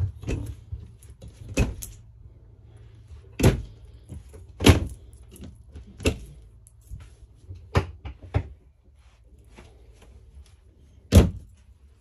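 Cabinet and wardrobe doors in a travel trailer being opened and shut: a string of sharp knocks and latch clicks, about eight of them, the loudest near the end.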